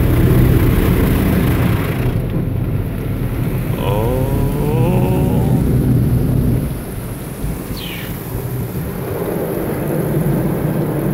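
Car wash heard from inside the car: water spray drumming on the car body over a steady low rumble of the wash machinery. A brief wavering, gliding pitched sound comes about four seconds in, and the whole sound grows quieter about two-thirds of the way through.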